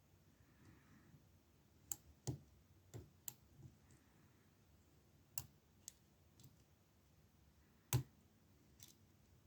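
Faint, irregular clicks and taps of a pick and tension wrench working the pins of an Abus 65/50 padlock during single-pin picking, about eight clicks with the loudest about eight seconds in.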